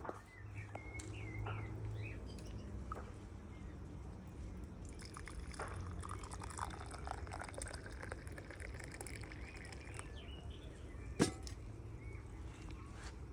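Liquid pouring for about five seconds, starting some five seconds in, with a few bird chirps near the start and a single sharp knock near the end.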